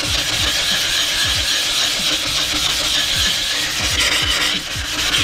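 A flattening plate being rubbed back and forth over a wet coarse 220-grit waterstone to true its surface, a steady gritty scraping in regular strokes about twice a second. Near the end the plate is tilted against the stone's edges to round them off.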